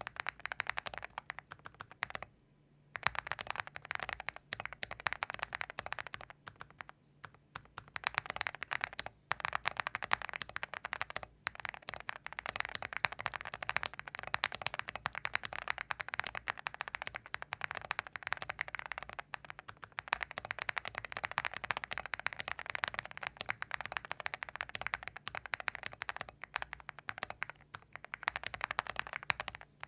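Continuous typing on a Zoom75 mechanical keyboard built with WS Morandi linear switches, a polycarbonate plate, PE foam, plate and case foam, and PBT keycaps: a quick stream of soft keystrokes, pausing briefly about two seconds in and again around seven and eleven seconds.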